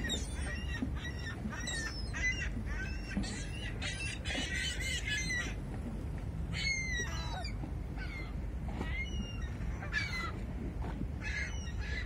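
A flock of seagulls calling overhead: many short squawks, overlapping and repeating, thickest about four to five seconds in.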